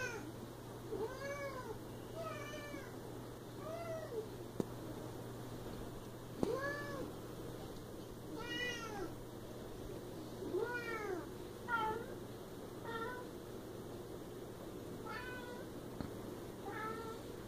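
Siamese cat meowing over and over, about ten drawn-out calls that rise and fall in pitch, one every second or two.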